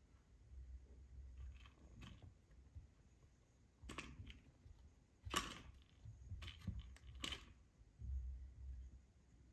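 Faint scrapes and clicks of a kitten's claws and paws on a plastic cat toy and its scratch pad, with a few short sharp scrapes in the middle, the loudest about halfway through.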